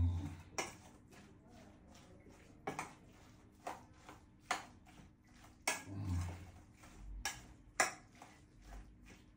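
Light metallic clinks on a stainless-steel mixing bowl as a salad is tossed and mixed by hand: about ten sharp, irregularly spaced clinks.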